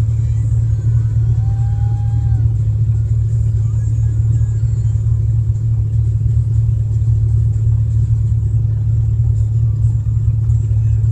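Motorboat engine running steadily under way with a constant low drone, along with the rush of water and air.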